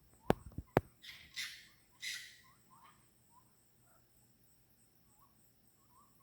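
Calls of an unidentified night animal: two harsh, hissing rasps about a second apart, among scattered short chirps, over a steady high insect drone. Two sharp clicks come just before the rasps.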